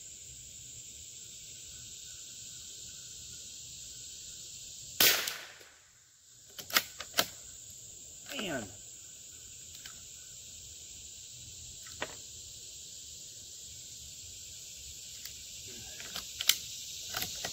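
A single .22LR rifle shot from a Howa M1100 bolt-action about five seconds in, followed by several sharp metallic clicks of the bolt being worked. A steady chirring of insects runs underneath.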